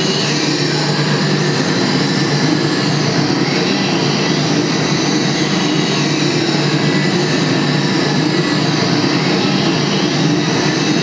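Live electronic noise from a loudspeaker: a loud, steady dense drone with a low hum, and high tones sliding up and down over it.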